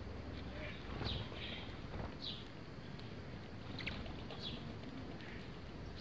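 House sparrows chirping, short single chirps about a second apart, over a steady low background rumble.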